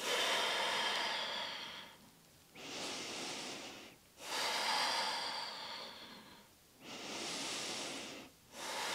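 A woman's slow, deep breathing, paced yoga breaths taken while holding a side plank: long airy breaths in and out of about one and a half to two seconds each, with short pauses between them.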